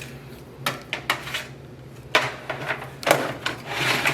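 Hard plastic parts of a robot vacuum's charging base and its packaging being handled: a few sharp knocks and clicks about a second in, then a longer stretch of scraping and rustling clatter in the second half.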